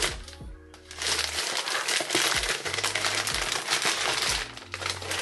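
Thin plastic mailer bags crinkling and rustling as packages are pulled out of a plastic shipping bag. There is a short lull about half a second in before the crinkling picks up again.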